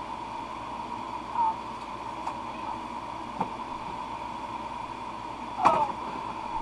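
Steady whir of electric fans, with a constant hum tone running through it. A couple of light clicks sound in the middle, and a short voiced murmur comes about five and a half seconds in.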